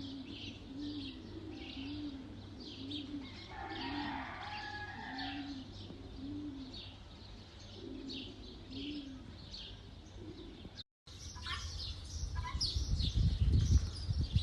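Many small birds chirping and twittering, with a dove cooing in a steady series of low, repeated notes. The sound cuts out briefly about eleven seconds in, then the chirping continues over a low rumble that grows louder near the end.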